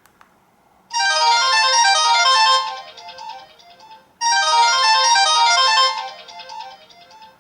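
A Samsung SCH-A915 ringtone played through a Philips Xenium E168 phone's loudspeaker: a short bright melody of quick notes, heard twice, each pass fading away after it. A faint click comes just before the first pass.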